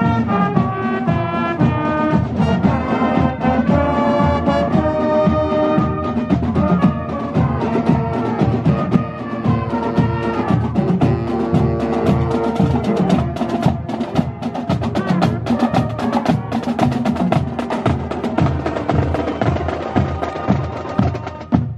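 Marching band playing a brass tune over a steady drum beat. About halfway through, the brass grows fainter and the bass drums and snare drums of the drumline come to the front, beating about two to three times a second.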